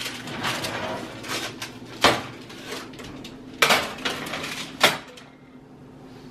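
Metal baking sheet of cookies taken out of the oven and set on an electric stovetop's coil burner: rustling and scraping, with three sharp clanks about a second or two apart.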